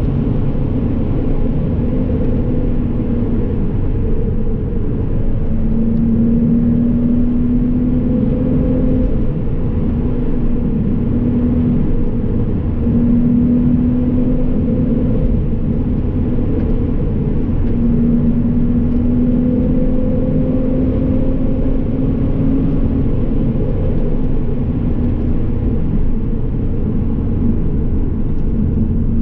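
2010 Porsche Cayman S's flat-six engine and tyre rumble heard from inside the cabin at speed. The engine note holds and rises slightly over several stretches, then fades near the end as the car slows.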